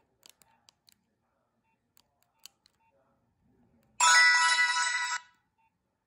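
A Nokia 2760 flip phone's speaker plays a short preloaded message alert tone, bright and ringing with several pitches at once. It starts about four seconds in and lasts just over a second. A few faint keypad clicks come before it.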